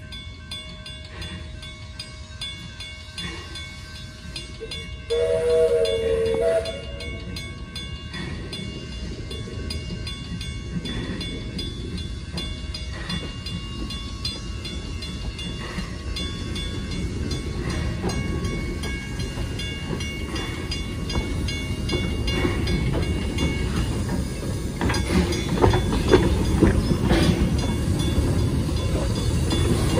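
Narrow-gauge Garratt steam locomotive NG129 gives one whistle blast of several notes together, about five seconds in and lasting about a second and a half. Then it draws nearer, its running growing steadily louder, with clanks near the end as it passes close by.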